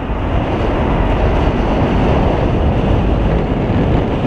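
Steady wind rush buffeting the microphone of a camera carried on a road bike riding at speed.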